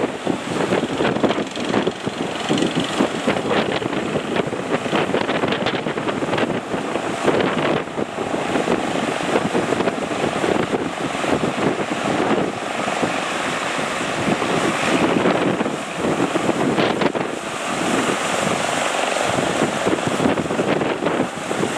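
Strong wind buffeting the microphone over breaking surf, a loud, constantly fluctuating rush.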